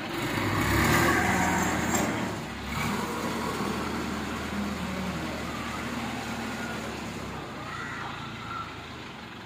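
Mobile crane's engine running under load as it carries a slung machine, louder for a second or two early on, then steady and easing off near the end.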